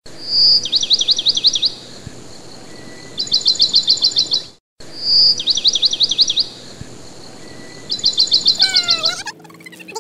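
Songbird calling: a short whistle followed by a quick run of down-slurred chirps, then a rapid trill, the same sequence heard twice. A falling glide comes near the end.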